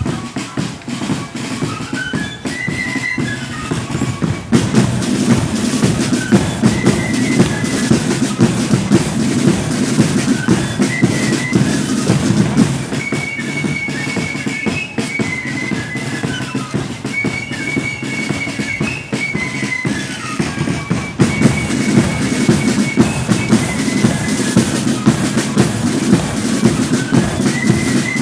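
Marching flute band playing: a flute melody over snare drums and a bass drum. The drumming grows louder about four seconds in and again near the end.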